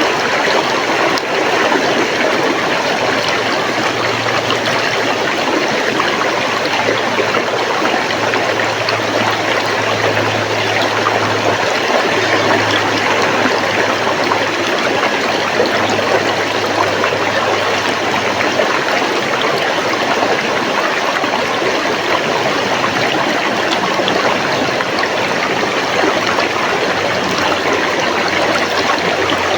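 River water flowing in a steady, even rush. A faint low hum sits underneath it from about four seconds in until about two-thirds of the way through.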